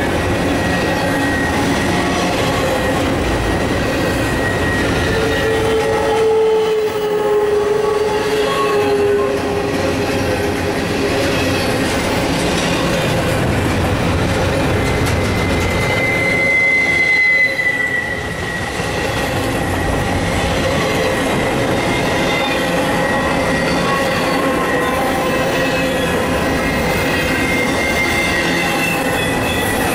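Double-stack intermodal well cars rolling past, their wheels running steadily on the rails with thin, high wheel squeals on and off. A louder, lower squeal comes about six to nine seconds in, and a higher one that drops slightly in pitch comes around sixteen to eighteen seconds in.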